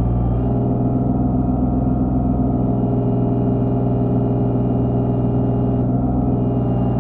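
Skid steer engine running steadily under a constant load, with a little shift in its tone about half a second in and again near six seconds.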